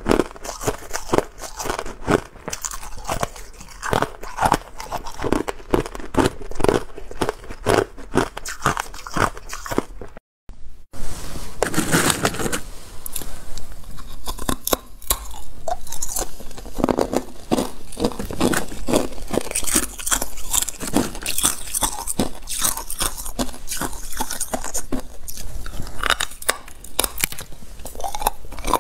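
Hard clear ice being bitten and chewed, a dense run of sharp cracks and crunches. There is a brief silence about ten seconds in, then the crunching carries on.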